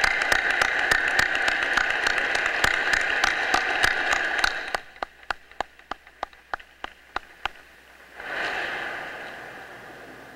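Audience applauding, thinning about five seconds in to a dozen scattered claps that stop. Near the end a short swell of noise rises and fades.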